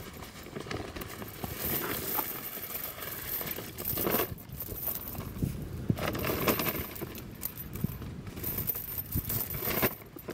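A length of metal chain handled by hand, its links clinking and rattling in irregular bursts.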